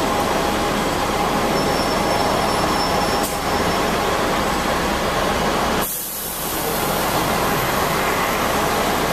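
Hong Kong double-decker electric tram running along its track: steady noise of steel wheels on rail with a faint hum, a short knock about three seconds in, and a brief dip in the low sound about six seconds in.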